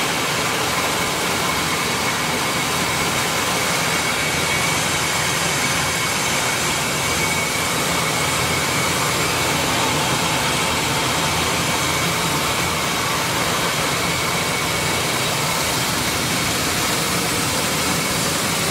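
PD2 maize grits milling machine running at a steady, even pitch while it grinds corn, with a faint steady high whine over the mechanical noise.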